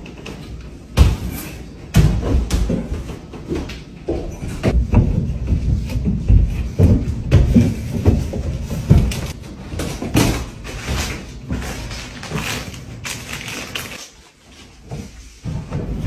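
A string of thuds and knocks from a barefoot person jumping onto and clambering over furniture, a stair banister and walls, with a quieter gap about fourteen seconds in.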